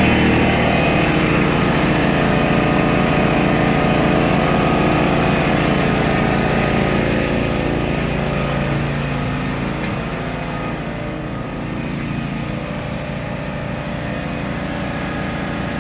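Honda EX1000 1000-watt portable generator's small engine running steadily under load, powering a battery charger and shop lights. The sound gets somewhat quieter after about eight seconds.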